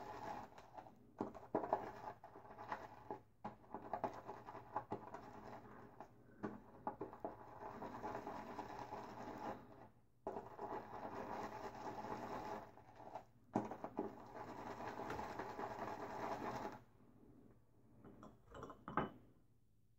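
Synthetic shaving brush whipping soap lather in a bowl: a steady, wet, scratchy swishing with small clicks of the brush against the bowl. The lather is being built up with about two teaspoons of water added. It stops about three-quarters of the way through, followed by a few faint handling knocks.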